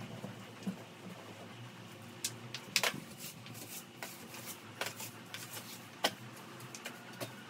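Broom sweeping a floor: light scrapes with scattered soft knocks and taps.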